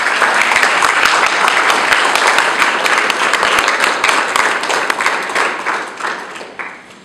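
Audience applauding: dense, continuous clapping that thins out and dies away in the last second or so.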